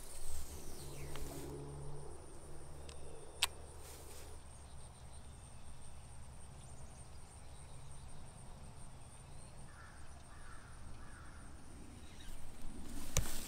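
Steady high-pitched insect drone over a low rumble, with a single sharp click about three and a half seconds in.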